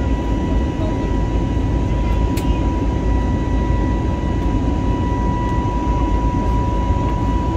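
Steady cabin noise of an Airbus A320neo in the climb after takeoff: jet engine and airflow noise with a strong low rumble and a steady whine throughout.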